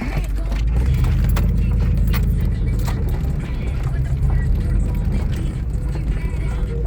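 Steady low rumble of a Ford F-150 pickup driving off-road, with scattered knocks and rattles throughout.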